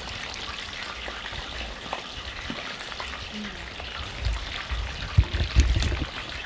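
Chicken wings deep-frying in oil in Dutch ovens on a propane camp stove: a steady sizzle with a few sharp pops. From about four seconds in, low thumps and rumbling from the camera being moved are the loudest sounds.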